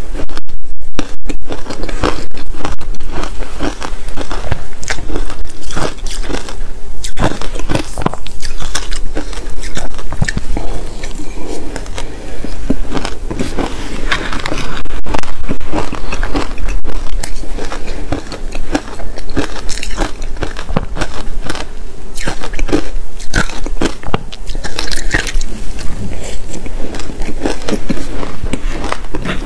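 Close-miked biting and crunching of soft, powdery shaved ice, a dense run of crackly crunches, with a metal spoon scraping and digging through the ice in the bowl.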